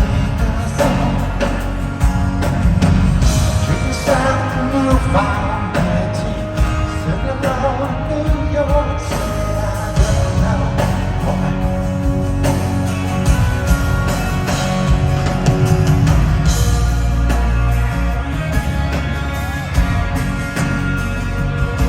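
Rock band playing live, a singer's voice carried over guitars, bass and drums.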